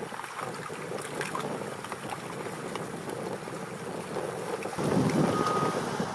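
Wind buffeting the microphone, then a heavy machine's engine grows louder near the end and a backup alarm sounds one steady beep.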